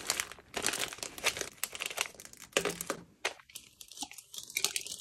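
Clear plastic packaging crinkling in irregular crackles as it is pulled out of a canvas drawstring pouch, thinning out after about three seconds.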